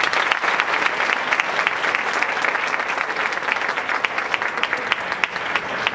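Audience applauding in a hall: many people clapping steadily, a dense patter of hand claps.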